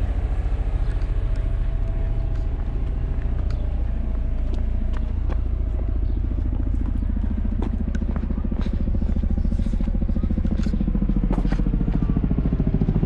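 A steady, low mechanical drone with a rapid, even pulse. Sharp clicks and taps join it from about midway.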